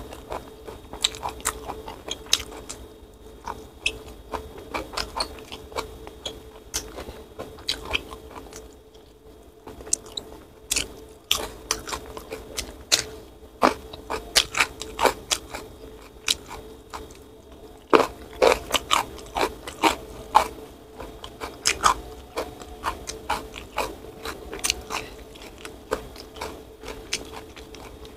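Close-up eating sounds: crunchy bites and chewing, with many short sharp mouth clicks, densest in the middle, as rice with spicy eggplant sambal and petai beans is eaten by hand.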